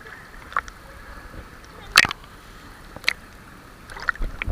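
Swimming-pool water splashing and knocking as people swim: a few sharp slaps, the loudest about two seconds in, over a faint steady hum.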